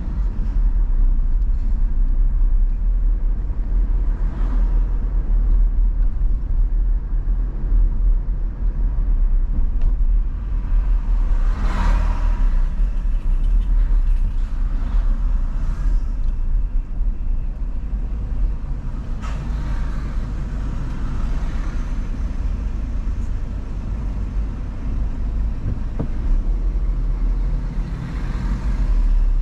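Road and engine noise of a car being driven through city traffic: a steady low rumble, with a few short swells of passing traffic, the loudest about twelve seconds in.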